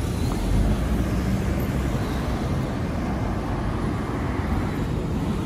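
City street traffic: cars driving through a road junction, a steady low rumble of engines and tyres that swells briefly about half a second in.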